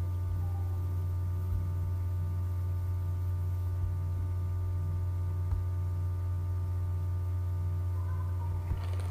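Steady low electrical hum in the recording, with several fainter steady higher tones over it.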